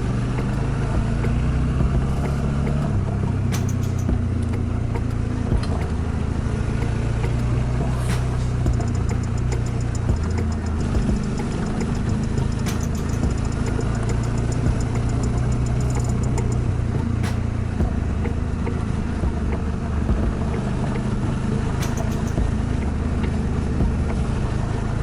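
Suzuki V-Strom 650XT's 645 cc V-twin engine running steadily, its pitch shifting a little.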